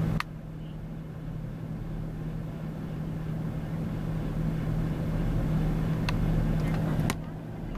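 Truck engine idling steadily, a low even hum. Two sharp clicks sound about a second apart near the end.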